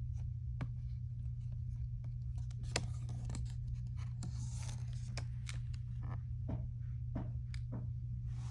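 Packaging of a pop-up storybook being handled and torn open: a run of crinkles and clicks, with a longer tearing rasp about four seconds in. A steady low hum runs underneath.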